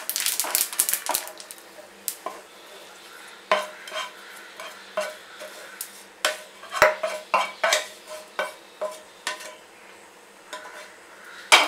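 Wooden spatula stirring and scraping sesame seeds in melted sugar in a nonstick pan: a dense rapid scratching for about the first second, then scattered scrapes and knocks as the hot mixture is scraped out of the pan, with one sharp knock near the end.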